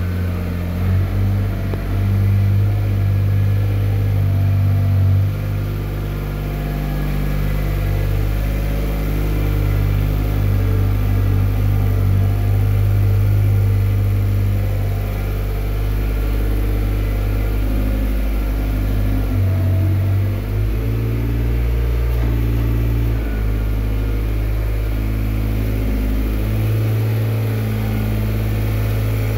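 Kubota engine of a TZ-4K-14 compact tractor running steadily under load while it drags a land plane through sand, its engine speed shifting up and down a few times in the second half.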